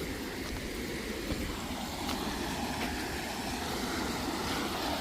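A river running high, its water rushing in a steady noise that grows a little louder toward the end.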